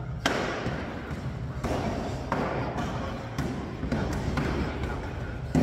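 A series of irregular thumps, about one a second, each trailing off in the long echo of a large stone hall.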